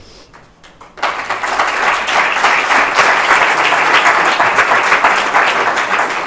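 Audience applauding, starting suddenly about a second in and carrying on as dense, steady clapping.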